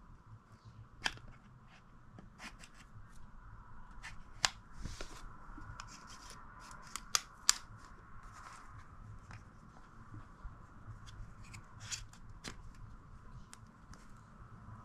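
Hands working with small objects: scattered sharp clicks and snaps, the loudest pair about seven seconds in, between short rustling and scraping sounds, over a faint steady hum.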